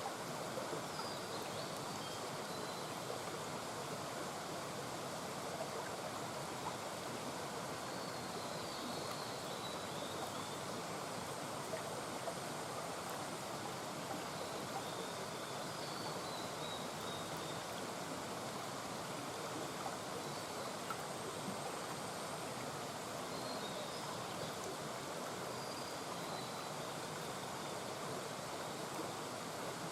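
Mountain brook babbling steadily, with faint short high chirps now and then.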